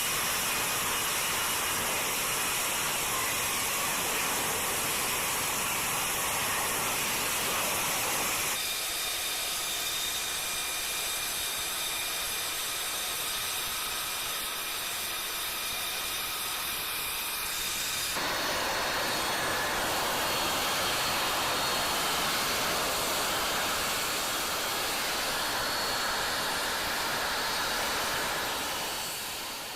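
F-35B jet engine running, a steady hiss with thin high-pitched turbine whine over it. The sound changes abruptly twice and fades out at the end.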